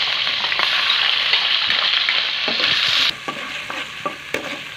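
Blended onion, garlic and ginger paste sizzling loudly in hot oil in an aluminium wok. The sizzle drops suddenly about three seconds in, and a spatula scrapes and taps against the wok as the paste is stirred.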